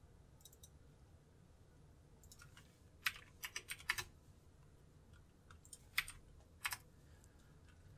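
Faint, scattered clicks of a computer mouse and keyboard, with a quick run of clicks about three to four seconds in.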